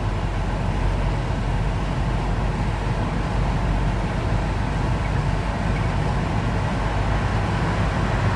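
Steady low drone of a moving car heard from inside the cabin: engine and tyre noise running evenly while driving.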